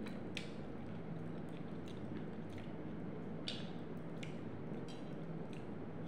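A person eating with their hands: soft chewing with a dozen or so short sharp mouth clicks and smacks, over a steady low hum.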